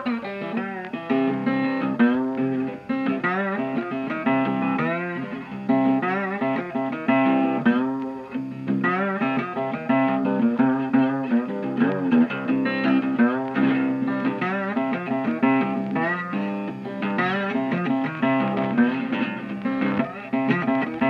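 Background music: guitar-led instrumental with plucked and bent notes over a steady bass line.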